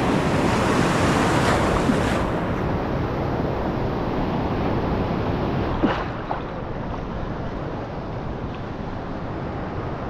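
Sea waves breaking and washing in the surf, with wind on the microphone. The wash is louder for the first six seconds, then eases, with one sharp tick about six seconds in.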